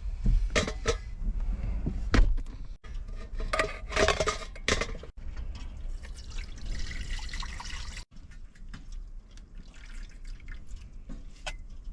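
Water splashing and pouring as food is rinsed by hand in a bowl, with sharp knocks and clinks of the dish. The sound breaks off abruptly three times.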